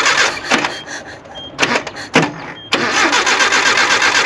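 Nissan 720 pickup's Z24 four-cylinder engine cranking over on the starter with a fast, even rhythm but not catching. The cranking stops briefly, with a few clicks and knocks in the pause, then starts again near three seconds in. The failure to fire is what the owner suspects might be an ignition issue.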